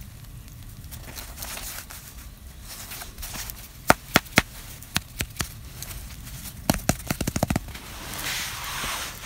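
Crusty home-baked bread crackling as it is pulled apart and squeezed by hand: a few sharp crunches about four seconds in, a quick run of crackles near seven seconds, then a rougher tearing rustle near the end.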